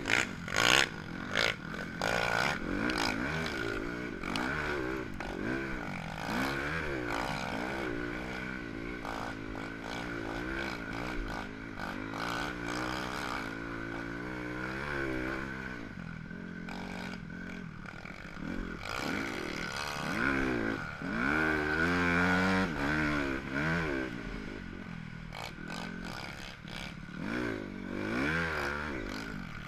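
Dirt bike engine revving up and down under hard riding, its pitch rising and falling again and again with throttle and gear changes, heard up close from the bike itself. A few sharp knocks and rattles in the first couple of seconds.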